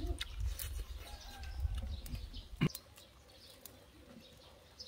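Birds chirping faintly in the background over a low rumble that fades about halfway through, with a few sharp clicks, the loudest about two and a half seconds in.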